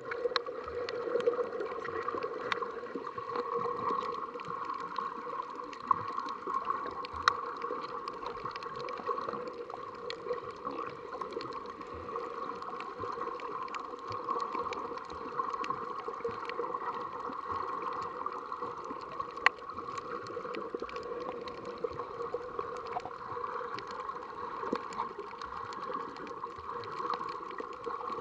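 Underwater ambience picked up by an action camera held below the surface: a steady, muffled wash of water noise full of small crackling clicks, with a few sharper clicks along the way.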